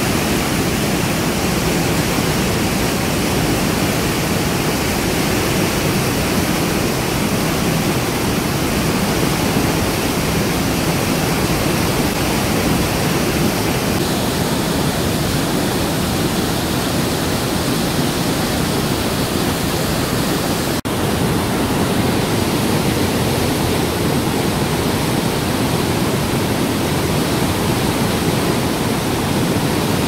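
Mountain stream torrent rushing and cascading over rocks through a narrow gorge: a loud, steady roar of white water, broken only by a brief dropout at a cut about 21 seconds in.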